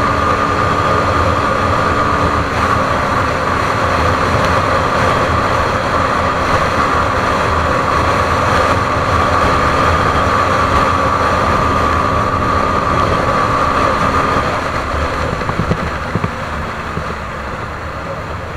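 CFMoto 150NK motorcycle engine running at steady revs under wind rush while riding, a constant droning whine. About three-quarters of the way through the whine fades and the sound drops off as the bike eases off the throttle.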